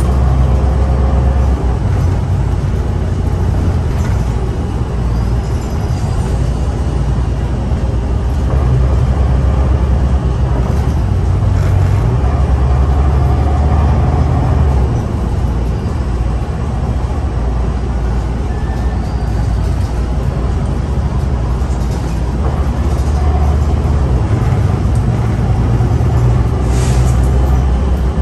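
Inside a moving city transit bus: the steady low rumble of the engine and road noise as it drives along at speed.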